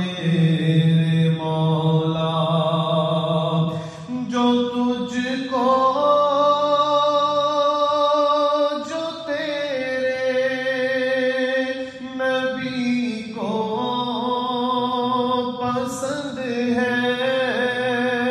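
A man singing an Urdu munajat, a devotional supplication, in long held, wavering notes, with short breaks between phrases.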